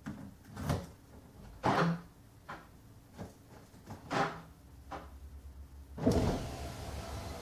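Key turned back and forth in the newly replaced driver's door lock cylinder of an Audi A6 C6 to test it. The lock clicks and clunks several times, loudest about two seconds in. A heavier clunk about six seconds in is followed by a steady low hum.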